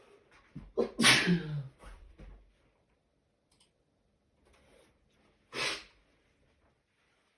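A person sneezing loudly about a second in, a sharp intake then an explosive sneeze with a voiced tail, during a sneezing fit. A shorter, quieter second burst comes about five and a half seconds in.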